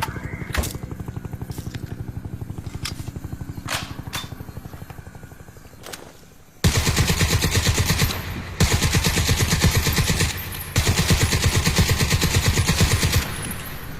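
Mk 60 machine gun firing full-auto at roughly ten rounds a second: a long string of fire fades away over the first half, then three long, loud bursts follow, each a couple of seconds long, with short pauses between them.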